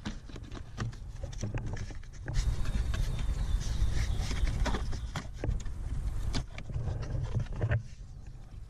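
Scraping and rustling of a car trunk's felt side lining being pulled back by hand, with scattered clicks and knocks from hands working among the tail light's wiring. The scraping is densest in the middle, over a low rumble of handling noise.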